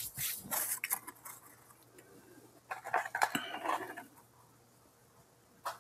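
Hands brushing off crumbs and handling food in paper wrappers: a run of soft rustles and light clicks, with a sharper click near the end.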